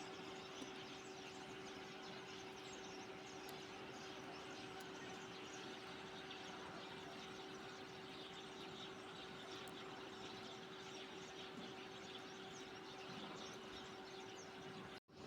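Faint outdoor ambience with scattered, quiet high chirps of tits over a steady low hum; the sound cuts out for an instant near the end.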